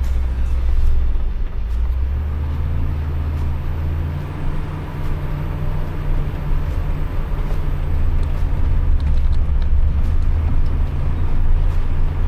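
4WD driving on a dirt bush track: a steady low engine drone with tyre and road noise. The engine note shifts about two seconds in and again around eight seconds, with a few faint knocks and rattles.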